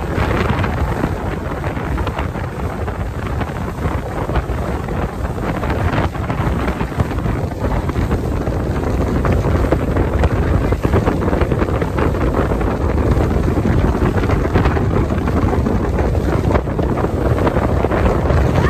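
Open speedboat running fast: a steady mix of engine and rushing water, with heavy wind buffeting the microphone.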